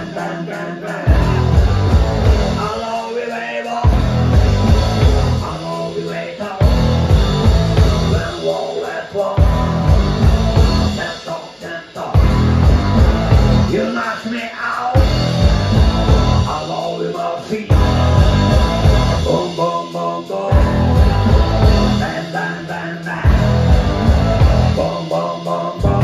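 Live rock band playing electric guitar, electric bass and drum kit, with a man singing. The heavy bass and drums come in a stop-start riff, breaking off every second or two.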